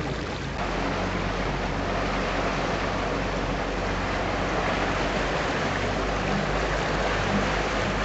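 Boat's engine running with a steady low hum under an even rush of water along the hull.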